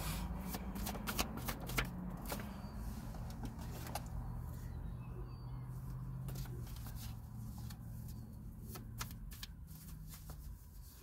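A deck of tarot cards being shuffled by hand: a run of irregular soft clicks and flicks, busiest in the first few seconds and again near the end.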